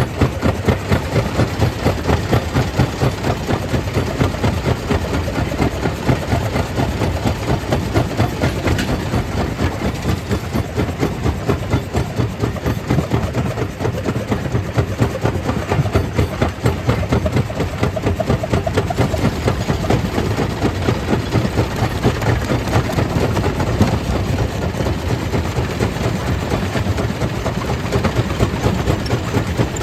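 Stone crusher plant machinery running steadily: a loud, heavy engine-like drone with fast, even pulsing throughout.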